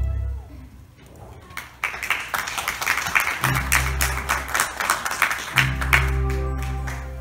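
Audience applause: many hands clapping, starting about a second and a half in just as music fades out. Sustained low chords sound under the clapping twice, then everything dies away near the end.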